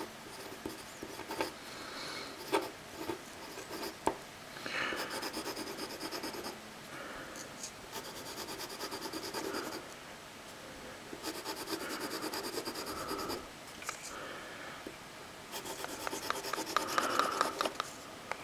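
Parker Vector pen scratching across paper in fast back-and-forth zigzag scribbles, in several bouts of about two seconds each. The pen is not writing properly.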